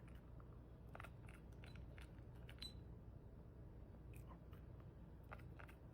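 A dog eating, heard faintly: a few scattered crunches and clicks against near silence and a low steady hum.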